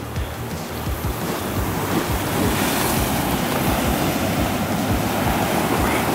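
Ocean surf breaking and washing over shoreline rocks, a steady rush of white water that swells about a second or two in, with wind buffeting the microphone.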